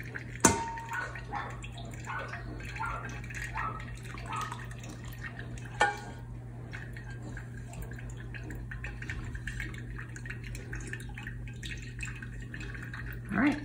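A spatula knocks and scrapes inside a stainless steel pot as the last curds and whey are scraped into a cheesecloth-lined sieve, with a sharp knock about half a second in and another near six seconds. After that, whey drips and trickles softly through the cheesecloth over a steady low hum.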